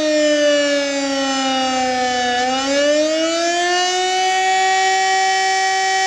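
Civil-defence siren wailing during a test alarm. Its pitch slides down for about two seconds, climbs back up, and then holds steady, with two strong tones sounding together.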